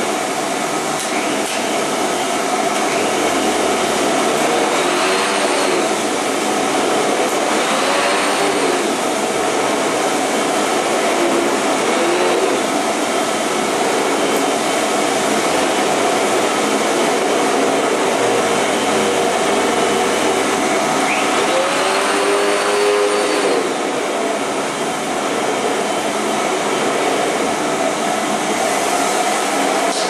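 Vacuum cleaner running steadily as continuous white noise, a dense rushing hiss with a steady hum. A few times, about 5, 8, 12 and 22 seconds in, the tone sweeps briefly up and back down.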